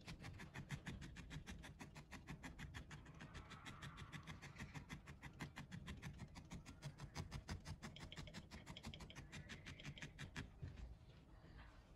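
Barbed felting needle stabbing repeatedly into wool to build up a needle-felted dog head: a faint, even poking at about six or seven strokes a second, stopping about ten seconds in.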